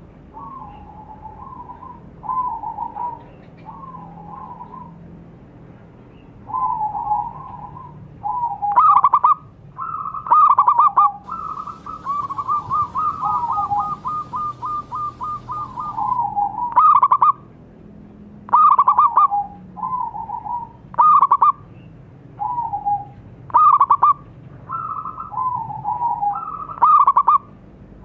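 Zebra dove (perkutut) cooing: a string of short rolling phrases, some louder with a sharper opening note, and a quick run of rapid even notes about halfway through.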